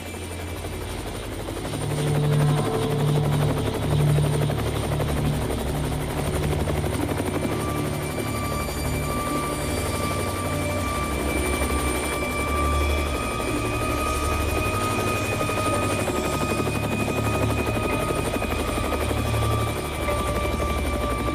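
Helicopter flying, its rotor blades beating rapidly, getting louder about two seconds in and then holding steady.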